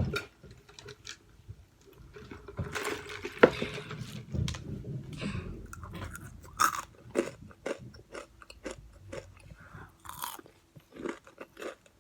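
Close-up chewing and crunching of crispy fried chicken, with irregular crackling bites and a sharp crunch about three and a half seconds in.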